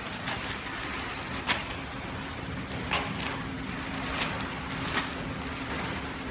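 Automatic flow-wrap pillow packaging machine running with a steady hum, with sharp clicks about every second and a half.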